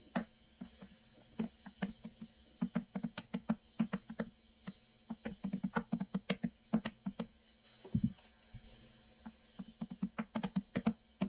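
Computer keyboard typing in quick runs of keystrokes with short pauses between them, and one duller knock about three quarters of the way through.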